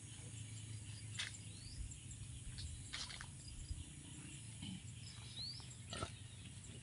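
Quiet rural ambience: birds chirping, with a few short rising chirps and brief sharp calls, over a faint steady insect hum.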